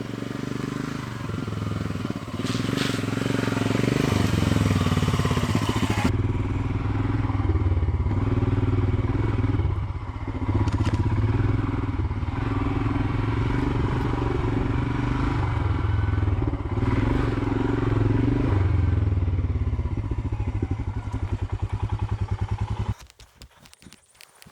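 Royal Enfield Himalayan's single-cylinder engine running under way on a dirt track, its note dipping briefly a few times. It cuts off abruptly about a second and a half before the end, leaving only faint scattered knocks.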